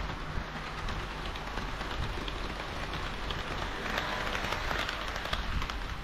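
HO-scale model diesel railcars (KiHa 40 / KiHa 58 series) rolling along the track: a steady rattle with many small ticks from the wheels over the rail joints, growing louder about four seconds in as a train approaches.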